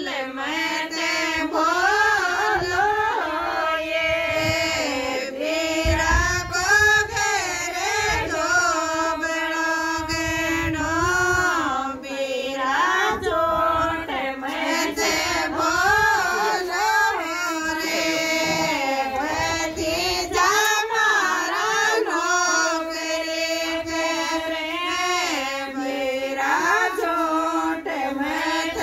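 Women singing a Rajasthani folk song in a continuous, melodic line with long held notes.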